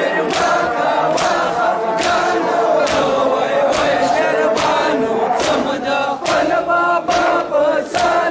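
A crowd of mourners chanting a Pashto noha in unison, with sharp slaps of matam (chest-beating) landing together a little more than once a second.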